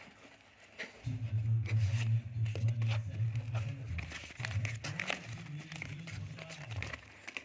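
Bubble wrap crinkling and cardboard and paper rustling as a folded paper invoice is pulled out of a packed parcel, in many short crackles. A low hum runs underneath from about a second in.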